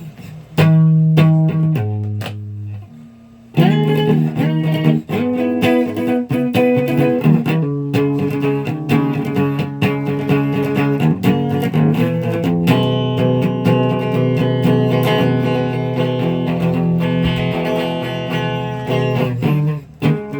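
Guitar being played: a few separate picked notes, then about three and a half seconds in, full strummed chords that ring on and change every second or so.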